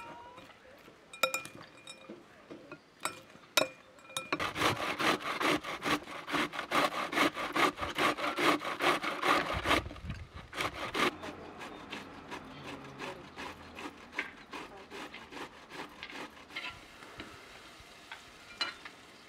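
White cabbage being grated on a stainless steel box grater: a quick, even run of scraping strokes, loud for several seconds, then softer. Before it, a metal spoon clinks a few times against a glass bowl as a salad is stirred.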